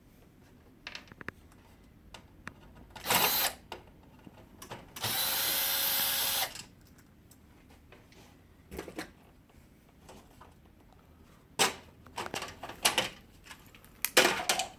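Power screwdriver backing out the Phillips screws of a laser printer's rear cover in short runs, a brief one about 3 seconds in and a longer one of about a second and a half, followed by scattered clicks and knocks of screws and plastic parts being handled.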